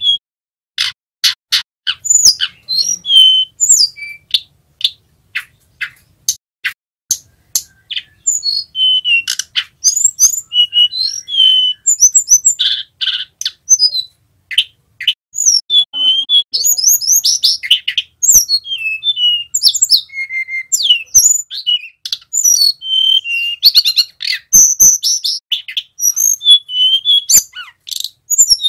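Male hill blue flycatcher (tledekan gunung) singing. It opens with a run of sharp, clicking notes, then from about eight seconds in gives varied high whistled phrases with quick trills.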